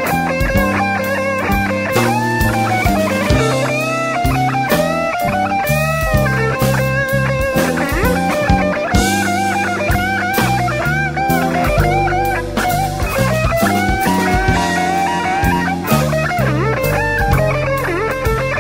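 Electric blues guitar solo with many bent, sliding notes, backed by bass and drums in a live band recording.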